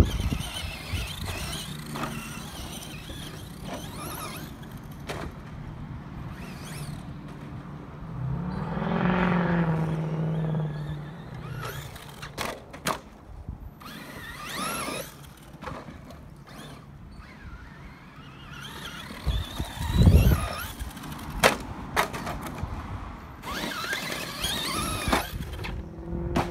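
Brushless-motored Traxxas Slash 2WD RC monster truck running over dirt jumps: its motor whines, rising in pitch and then holding as it accelerates, among scattered knocks and clicks. A heavy thud about twenty seconds in is the loudest sound.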